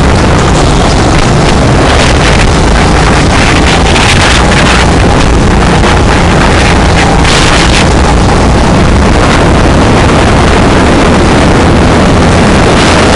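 Go-kart engine running at speed, heard from onboard the kart, with wind buffeting the microphone. Loud and distorted throughout.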